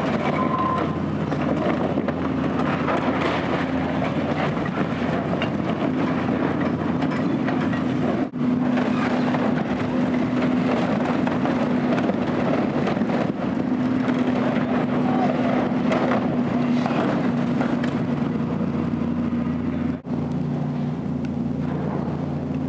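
Caterpillar 320 hydraulic excavator's diesel engine running steadily under load, with scattered crunching and clatter of sheet metal and debris as its bucket tears down a barn roof.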